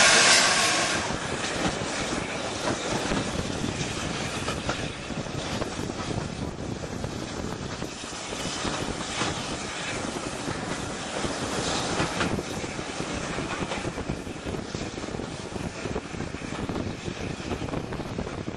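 A loud hiss of steam dies away in the first second. Then a steam-hauled train rumbles steadily along the track, with occasional knocks and clanks.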